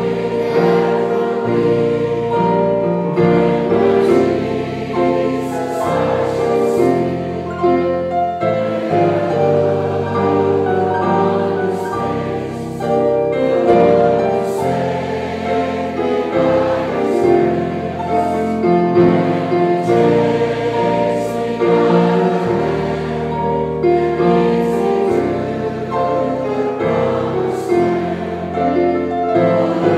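Male southern gospel vocal trio singing an old hymn in harmony, with held notes over keyboard accompaniment.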